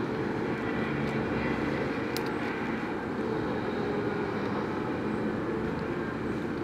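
Heavy diesel engines of a Liebherr 9350 mining excavator and a Komatsu HD785-7 haul truck running steadily during loading, with a light click about two seconds in.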